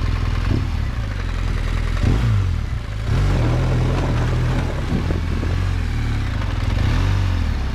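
Big adventure-motorcycle engine revved up and down in repeated surges, with the clutch slipped, while the spinning rear tyre sprays sand: the bike is being pivoted around its front wheel in an elephant turn. It gets louder about three seconds in.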